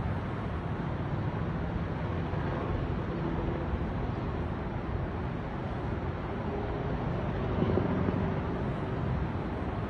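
Small helicopter flying past, a steady low drone of rotor and engine with a slight swell near the end.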